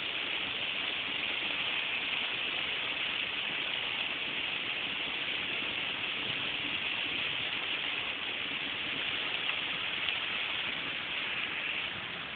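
Steady hiss of car cabin noise heard from inside a vehicle in traffic, with no break in it, a little quieter near the end.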